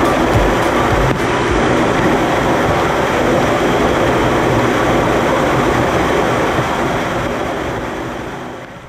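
Waterfall: a steady rush of falling water, which fades out over the last few seconds.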